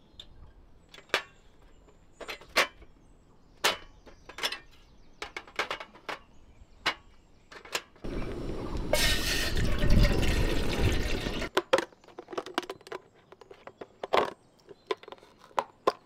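Sharp clicks and knocks of a portable butane camping stove being handled and its gas canister fitted. About eight seconds in comes a loud rushing noise that lasts some three seconds and cuts off suddenly, and then more scattered clicks.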